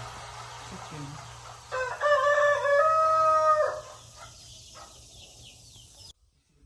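A rooster crowing once: a single drawn-out crow of about two seconds, starting near the two-second mark, over a steady hiss that cuts off suddenly near the end.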